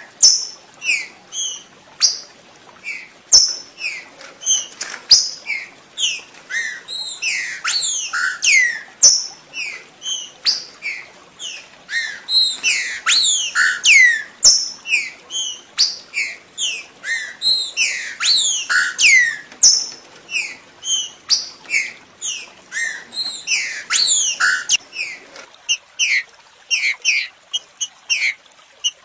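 Green-winged saltator (trinca-ferro) singing: a fast, unbroken run of loud, clear whistled notes, many sliding sharply downward. Near the end the phrases become shorter and choppier.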